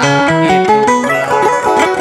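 Kacapi, the Sundanese plucked zither, playing a quick melodic run of single plucked notes.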